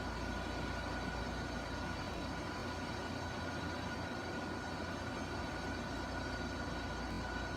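Steady background hum and hiss with a faint constant high whine, unchanging throughout: room tone.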